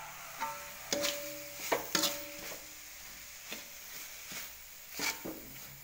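A metal spoon scraping and knocking against an aluminium wok as grated coconut and spice paste are stirred over low heat. There are several irregular strikes, the louder ones leaving the wok ringing briefly.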